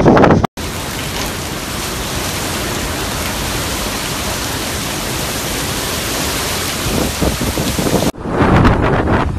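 Storm wind and heavy rain lashing palm trees, a steady dense hiss. Near the start and again near the end, harder gusts of wind buffet the microphone.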